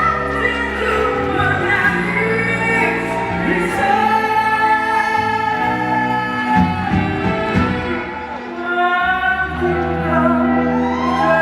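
A singer holding long melodic notes with vibrato over a pop band accompaniment with a steady bass line.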